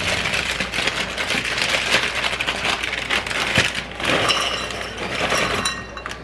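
A plastic-foil bag of Hot Cheetos crinkling and rustling as it is opened and handled, a dense run of sharp crackles.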